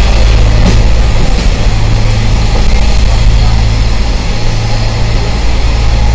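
Train locomotive engine running steadily, a loud low hum with a constant background rush.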